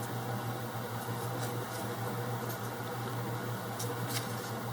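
Steady low background hum, with a few faint soft ticks of 1990 Topps football trading cards being handled and flipped.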